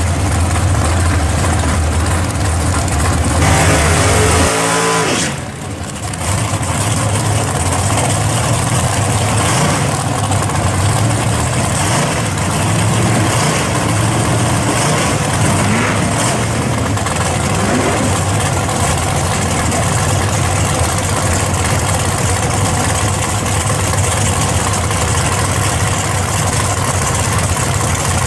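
First-generation Chevrolet Camaro drag car's V8 running loud and steady, with one quick rev about four seconds in that cuts off suddenly.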